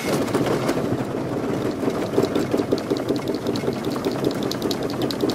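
Car driving over a rough test-track surface: a steady rumble from the tyres and running gear with a rapid, even pulsing and faint regular rattles.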